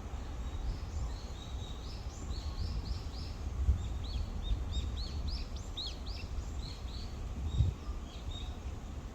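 Birds chirping: a long run of short, high, quick notes, many falling in pitch, over a low rumble of wind on the microphone, with a couple of stronger gusts.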